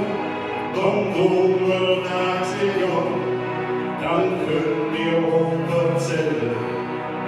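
Two men singing a Christmas duet in Cologne dialect, with musical accompaniment.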